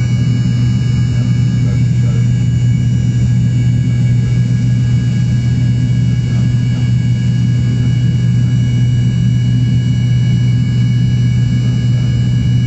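Cabin noise of an Embraer ERJ-145 in its climb after takeoff: a steady, loud low drone from its rear-mounted Rolls-Royce AE 3007 turbofans, with several steady whining tones above it.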